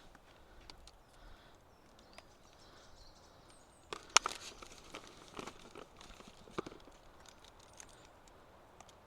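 Sparse clicks, light knocks and rustles of ingredients and containers being handled while a crumble is assembled in a tray, with the sharpest click about four seconds in.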